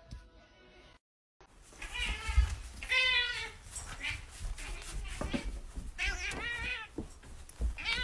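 Ginger cat meowing repeatedly to be fed: about four long meows with wavering pitch, a second or more apart.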